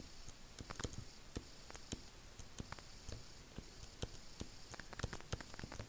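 Faint, irregular ticks and clicks of a stylus tapping on a tablet screen while handwriting an equation.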